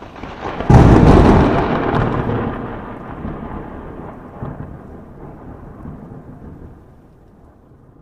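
Thunderclap sound effect: a short swelling rumble breaks into a loud crash under a second in, then a long rumble fades away over several seconds.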